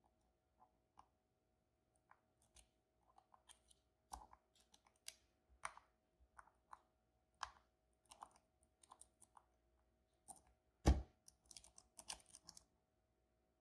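Lock picks and tension tool working the pins of a Banham m2002 lock: irregular small metallic clicks and ticks, with one louder knock near the end.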